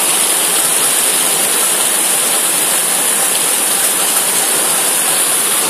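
Torrential rain pouring down: a loud, steady, unbroken rush of water.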